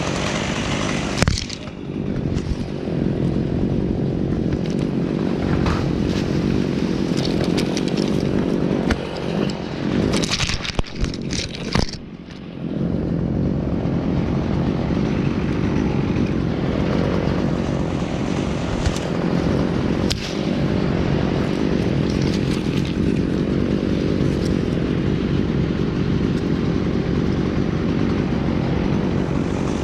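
Gas chainsaw running steadily. It drops off briefly about a second in, and again around twelve seconds in, just after a cluster of sharp cracks.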